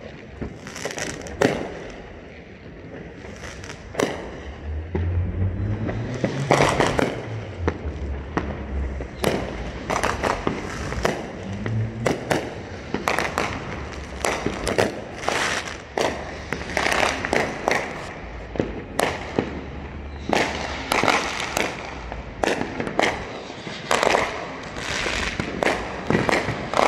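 Many fireworks going off: a few scattered bangs, then, from about nine seconds in, a dense run of bangs and crackling from overlapping aerial bursts. A low hum rises in pitch a few seconds in, under the bangs.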